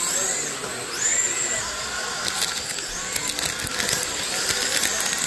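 Radio-controlled dirt oval race cars running laps. Their motors give a high whine that rises and falls in pitch as they accelerate and lift, with tyres scrabbling on the clay and a few clicks and knocks.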